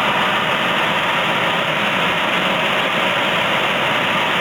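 Furnace blower running, with air rushing steadily out of the fresh air adder tube into the furnace plenum. The owner says this airflow comes straight from beside the furnace exhaust on the roof.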